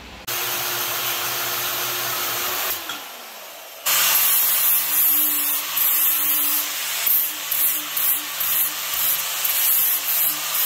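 A power-tool motor runs steadily for about two and a half seconds, then winds down. From about four seconds in, a corded angle grinder grinds the corner off a steel bracket held in a vise, loud and uneven as the disc bears on the metal.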